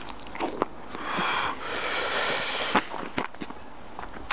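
Two breathy exhales or wheezes, the second longer, with a few small clicks before and after.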